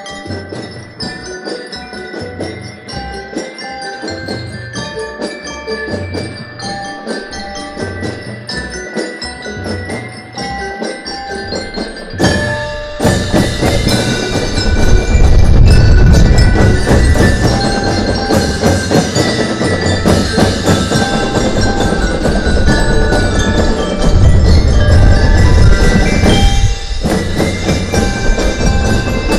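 Drum and lyre band playing: bell lyres carry a ringing melody over light drumming, then about twelve seconds in the full drum line comes in loudly and keeps on.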